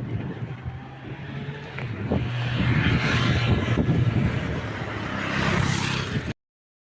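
A vehicle's engine running steadily while travelling, with road and wind noise that grows louder about two seconds in. The sound cuts off abruptly near the end.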